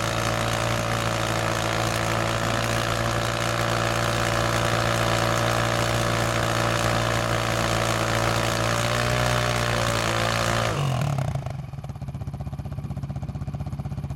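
Yamaha Raptor quad's engine held at steady revs while its rear tyres spin in place in sand in a stationary burnout. Just under 11 seconds in the revs drop suddenly and the engine settles to a quieter idle.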